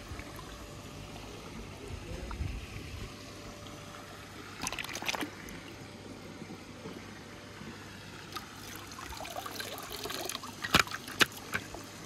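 Steady trickling water, broken by a few short sharp clicks about five seconds in and again near the end.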